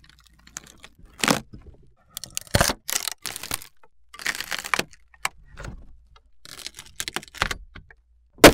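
Wood cracking and snapping in a series of irregular, sharp bursts with short gaps between them, the loudest snap near the end.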